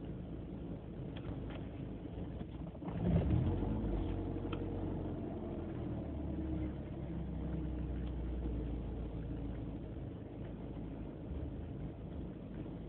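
BMW E36 318ti four-cylinder engine idling roughly, a fault that a new idle control valve has only slightly improved. About three seconds in the sound suddenly gets louder and then eases back over several seconds.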